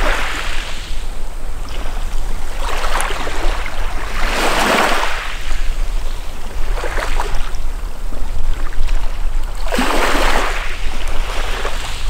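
Small sea waves washing up a pebble beach in repeated surges every couple of seconds, the strongest about four and a half seconds in and again around ten seconds.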